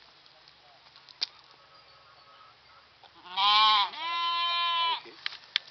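A sheep bleating once, about three seconds in: a loud wavering start that settles into a steady held tone for about a second before stopping.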